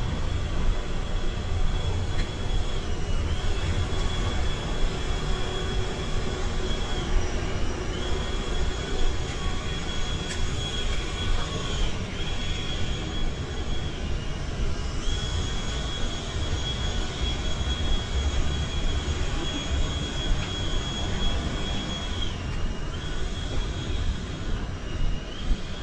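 Downtown street ambience: a steady low rumble of traffic with a thin, steady high-pitched whine above it that dips slightly in pitch a few times.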